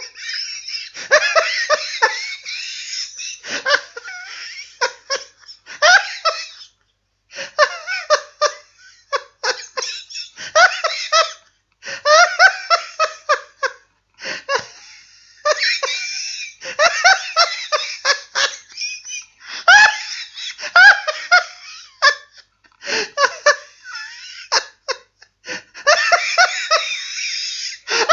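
Human laughter in runs of quick, pitched ha-ha pulses, with short pauses for breath between the runs.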